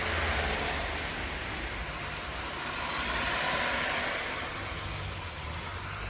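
Heavy rain falling: a steady hiss with a low rumble underneath, swelling a little partway through.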